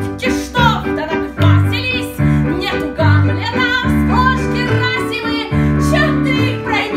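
A woman singing a song over instrumental accompaniment, with sustained bass notes that change about once a second under her voice.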